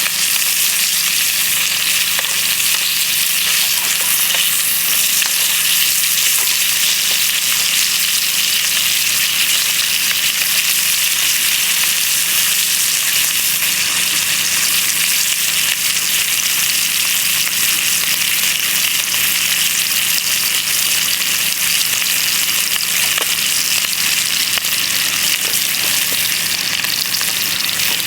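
Bacon and eggs frying in a frying pan: a steady, even sizzle with an occasional small pop.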